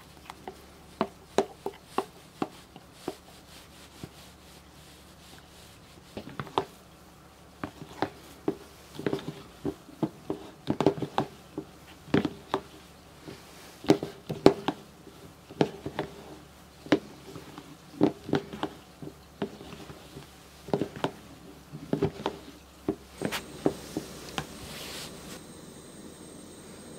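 Spatula knocking and scraping against a bowl in irregular taps while meringue is folded into pancake batter. About 23 seconds in, a steady hiss of a portable gas burner heating a small cast-iron skillet takes over.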